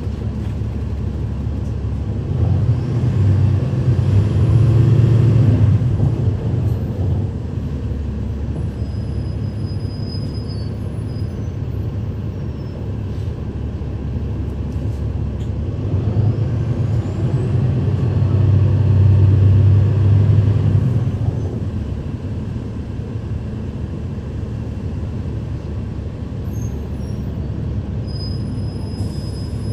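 Cummins ISL9 diesel engine of a 2012 NABI 416.15 transit bus, heard from inside the cabin, running under way. Its drone swells louder twice, a few seconds in and again past the middle, then settles back to a steadier level.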